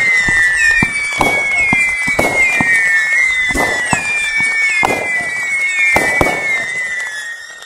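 'Total Gossip' 500-gram consumer firework cake firing a rapid run of shots, about two a second, over shrill whistling that dips slightly in pitch after each shot. It dies down near the end as the cake finishes.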